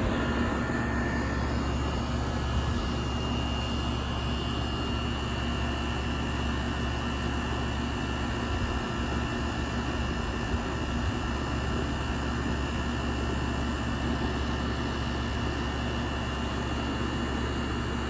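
2001 York central air conditioner's outdoor condensing unit running: the steady rush of air from the condenser fan over a low steady hum, with a faint high whine coming in about two seconds in.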